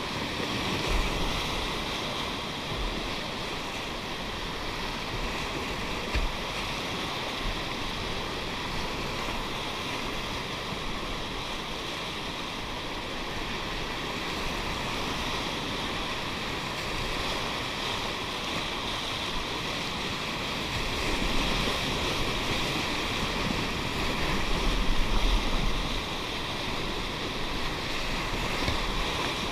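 Whitewater river rapids rushing steadily, with low rumbling on the microphone that comes and goes and is heaviest a few seconds before the end.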